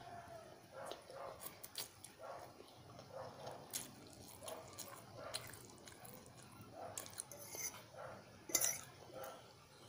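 A person eating pancit canton noodles: sucking in dangling strands and chewing, with a run of small wet mouth clicks and smacks.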